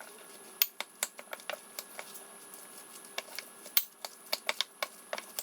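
Utensil stirring a thick corn fritter batter in a glass bowl, clicking irregularly against the glass.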